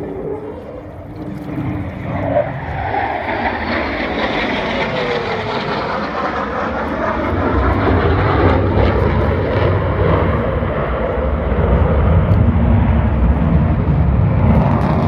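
Aircraft engine noise from a plane flying over, growing louder over the first several seconds and then staying loud, with a falling pitch a few seconds in as it passes.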